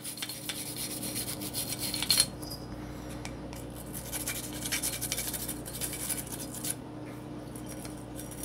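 Cleaning brush scrubbing the inside of a Glock 19X pistol slide in rapid back-and-forth strokes, working loose carbon fouling, with one brief knock about two seconds in.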